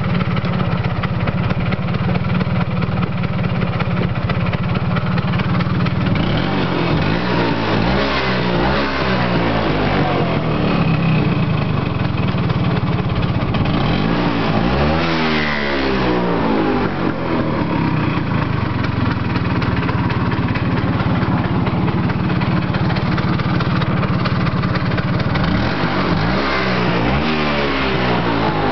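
1980 Vespa P200's single-cylinder two-stroke engine running at a steady speed, its pitch rising and falling three times: about a quarter of the way in, in the middle, and near the end.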